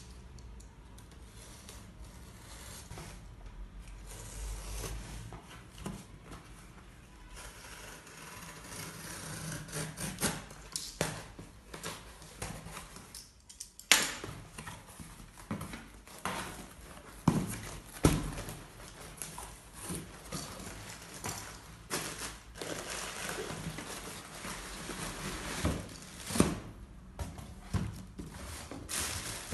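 Packaging being handled and opened by hand: irregular rustling and rubbing with scattered knocks and clicks, the sharpest click about fourteen seconds in and several more thuds after it.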